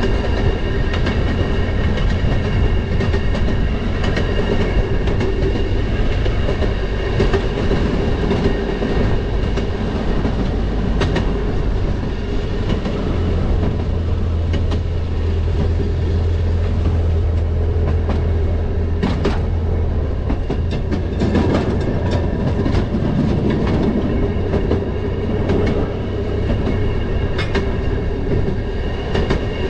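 Railroad motorcar (track speeder) running along the rails: a steady mechanical drone with a heavy low rumble, and now and then a sharp click as the wheels pass over rail joints.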